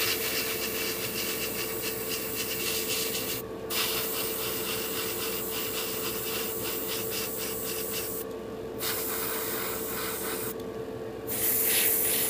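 Airbrush spraying white paint in long hissing passes, cut off briefly three times as the trigger is released, with a steady hum underneath.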